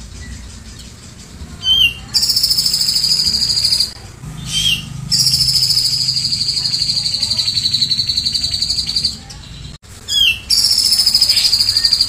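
Caged cucak jenggot (grey-cheeked bulbul) singing three long, high, rapidly pulsing trills, each opened by a short upslurred note, with brief pauses between. The trills fall slightly in pitch and are the rapid-fire 'tembakan' song taught from cililin recordings.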